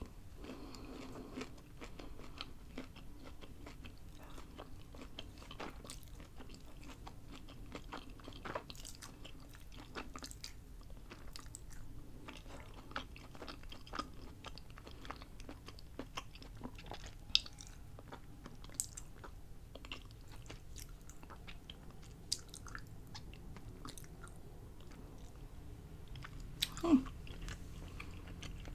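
A person chewing and biting fried, breaded mozzarella sticks close to a microphone, with scattered small crunches and clicks from the crust.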